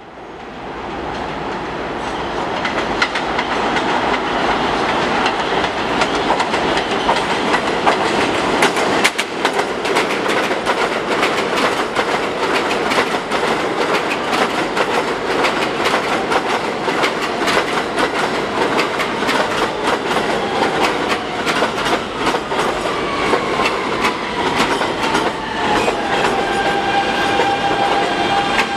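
R160 subway train running along an elevated station platform, its wheels clattering over the rail joints. Near the end a motor whine falls in pitch and then holds steady.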